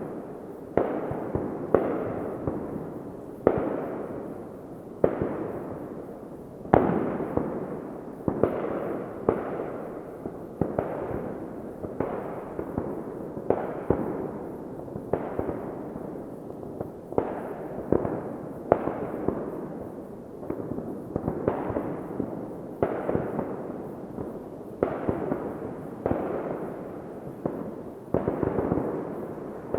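Fireworks going off in a steady barrage: sharp bangs about once a second, each trailing off in a rolling echo before the next.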